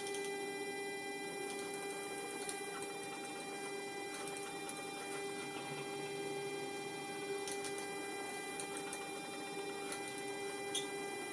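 Steady electrical hum from the powered test rig of a Sperry AD-300C attitude director indicator and its synchro transmitters, with a few faint clicks scattered through it.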